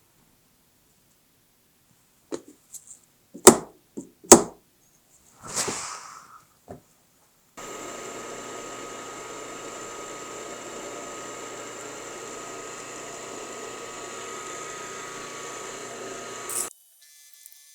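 A few sharp knocks on metal, two of them loud, and a brief rush of noise, then a milling machine running steadily for about nine seconds with a constant whine, starting and stopping abruptly.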